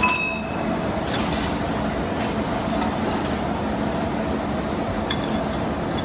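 Steady industrial machinery din with metal clinks. A sharp metal strike rings out right at the start, and a few fainter clinks follow.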